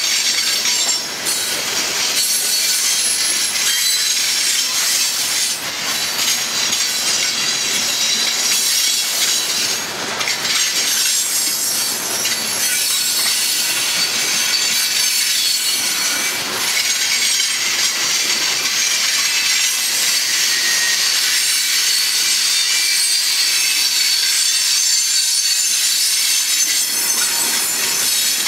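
Coal hopper cars rolling past, their steel wheels on the rails making a loud, steady, high-pitched grinding hiss with a faint wheel squeal running through it.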